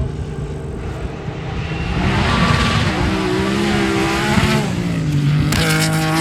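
Rally car engine at full speed on a gravel stage, growing loud about two seconds in, its pitch climbing and dropping through the gears. Near the end the revs rise again under a run of sharp crackles.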